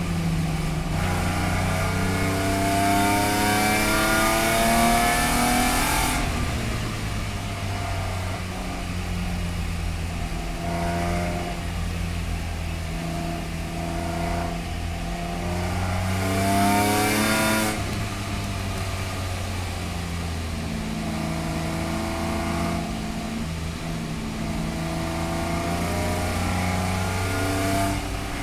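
Race car engine heard from inside the cabin, climbing through the revs three times under throttle and dropping back in between as the car brakes and turns. A loud hiss rides over the first two pulls and cuts off suddenly each time the throttle is lifted.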